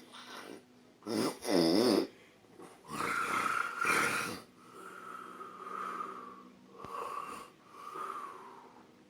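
A man snoring loudly in his sleep: a snore with a wavering pitch about a second in, a second loud snore around three seconds in, then three softer breaths, each carrying a thin whistling tone.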